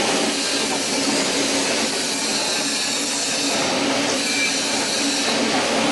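YX-250B horizontal flow-wrapping packing machine running steadily: a continuous mechanical whir with a steady low hum underneath.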